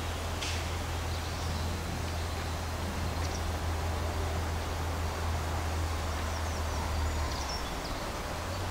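Outdoor forest ambience through a trail camera: a steady hiss and low hum, with a few faint, short bird chirps scattered through.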